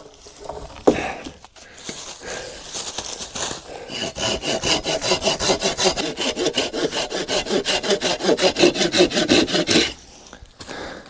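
Hand saw cutting through wood for firewood: a few uneven strokes first, then about six seconds of quick, even back-and-forth strokes that stop suddenly.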